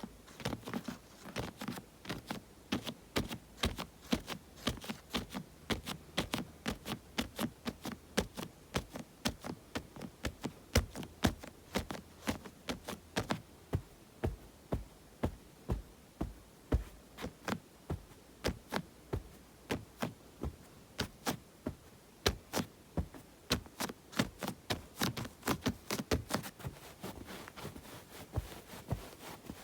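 ASMR hand sounds: fingers tapping and palms rustling, an irregular run of sharp taps at about three a second.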